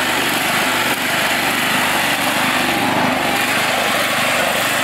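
Toro riding lawn mower's engine running steadily while the mower is driven.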